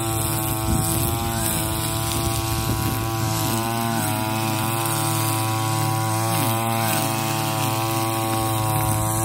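Backpack brush cutter's small petrol engine running steadily at high speed while cutting grass, its pitch dipping briefly and recovering a few times.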